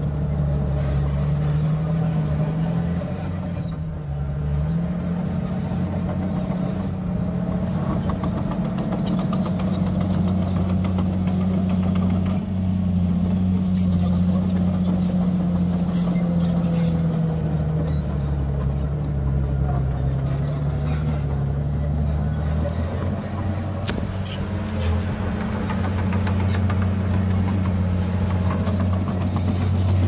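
Komatsu D51PX crawler bulldozer's diesel engine running under load as it pushes soil and rock, its pitch rising and falling as the engine speed changes.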